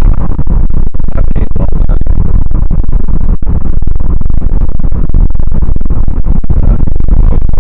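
Loud, steady rumble of road and wind noise in a moving car, overloading the camera's microphone, with brief dropouts every so often.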